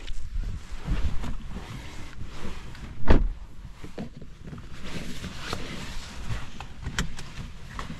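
Car driving on a snowy road: a steady low rumble with irregular knocks and clicks, and one heavier thump about three seconds in.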